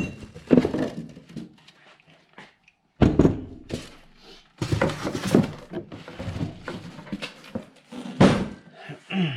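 Winch kit parts and packaging being handled: irregular thunks and knocks with rustling, broken by abrupt cuts twice.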